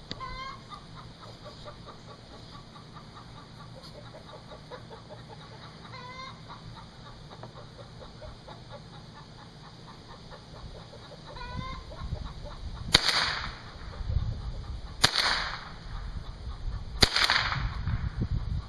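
Three shots from a Charter Arms AR-7 .22 Long Rifle semi-automatic rifle, about two seconds apart, in the second half. Before them, chickens cluck a few times in the background.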